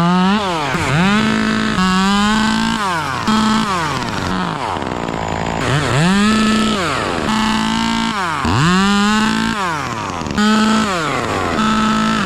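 Two-stroke chainsaw revving up to full throttle and dropping back to idle over and over, about every one to two seconds.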